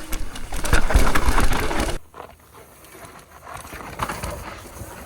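Downhill mountain bike riding over loose, dry dirt: tyres crunching and sliding, bike rattling, and wind rumbling on a helmet camera. It cuts off suddenly about two seconds in, leaving a quieter stretch with a few scattered knocks.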